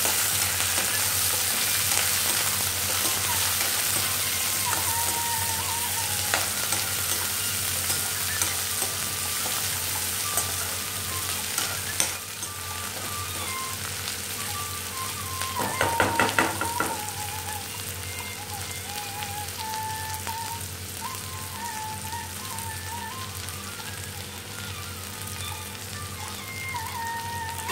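Chopped onions, garlic and curry leaves frying in hot oil in a kadai with a steady sizzle, being fried until golden. A spoon stirs them at times, with a few short scrapes and clicks against the pan.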